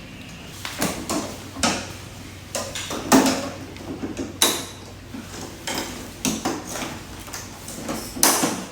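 Irregular knocks, clicks and clatter of parts and tools being handled while an LCD TV is taken apart, with a sharper knock about three seconds in and another near the end.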